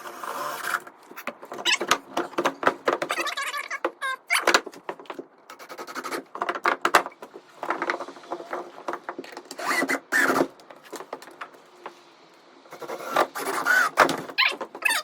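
Irregular knocking, scraping and clicking of hand work on wood and a plastic box, with a few short squeaks, as a weatherproof electrical box is fastened to a 2x4.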